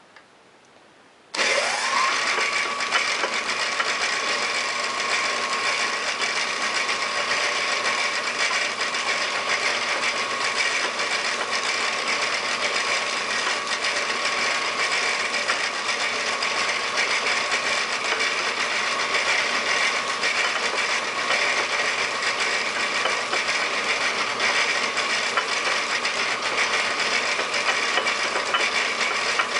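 Lathe starting up about a second and a half in, its whine rising quickly to a steady pitch, then running steadily with an even hiss as it spins a wooden mandrel inside an engine cylinder to lap the bore with abrasive compound.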